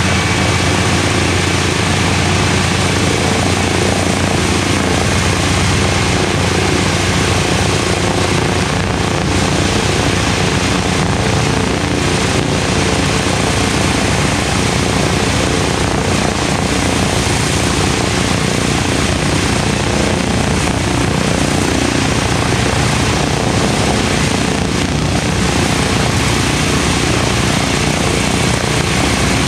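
Two Wright R-1820 Cyclone nine-cylinder radial engines of a B-17 bomber idling with their propellers turning, a steady loud rumble of rapid firing. They are warming up after a cold start.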